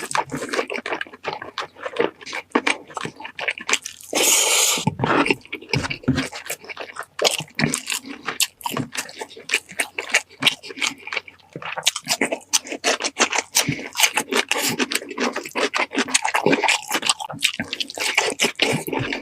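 Close-up wet eating mouth sounds: chewing, lip smacks and small clicks, with a longer noisy sound, like a slurp, about four seconds in.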